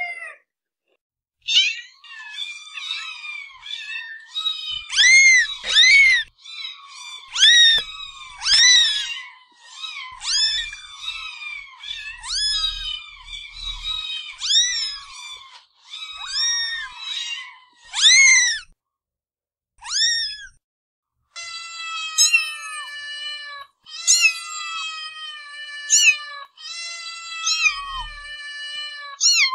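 Domestic cats meowing, a dense run of short, rising-and-falling meows in quick succession. After a brief pause about two-thirds of the way through, a series of steadier, lower-pitched meows follows, about one a second.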